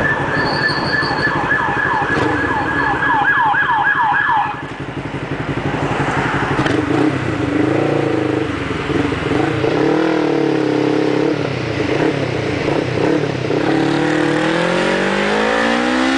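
An emergency-vehicle siren sounds a fast, repeated up-and-down yelp over a motorcycle engine, then cuts off about four seconds in. The motorcycle engine runs on, its pitch wavering with the throttle, then rising steadily as the bike accelerates near the end.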